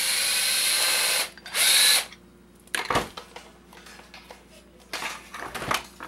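Power drill-driver with a long security bit whirring against a stubborn security screw in a hair dryer's plastic housing: one run of about a second, then a shorter, louder burst. It is followed by a few clacks and knocks of the tool and the dryer being handled.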